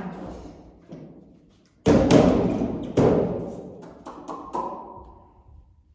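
Gym equipment handled and set down on the floor: two loud thuds about a second apart, then lighter knocks followed by a short metallic ring that fades away.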